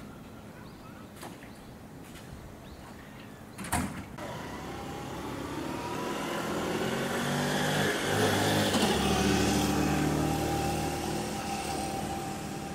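A motor vehicle going by, its engine sound building for several seconds and then fading. A sharp click comes just before it, a little under four seconds in.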